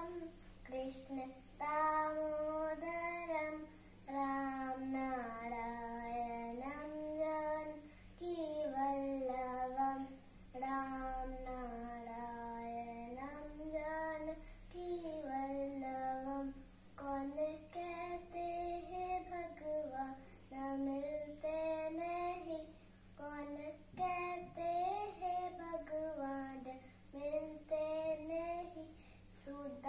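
A young girl singing solo and unaccompanied, in phrases of long held notes that glide between pitches, with short breaks for breath between phrases.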